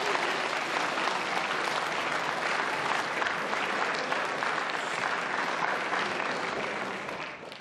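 Audience applauding, dense steady clapping that fades out near the end.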